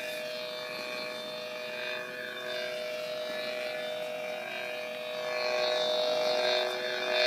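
Teensysaber lightsaber sound board humming through the saber's speaker: a steady electric drone of several held tones that swells louder about two and a half seconds in and again from about five and a half seconds.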